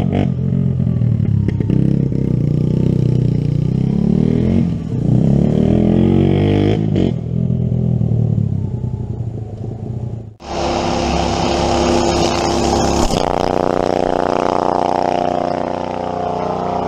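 Kawasaki KLT 110 three-wheeler's small single-cylinder four-stroke engine, revving up and dropping back again and again as it is ridden. It breaks off sharply about ten seconds in, and a different, steadier motor sound follows with a slowly falling whine.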